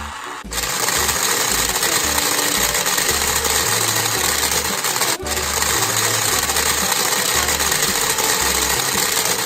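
Toy blender's small motor whirring steadily with a rattle, cutting out for an instant about five seconds in and starting again.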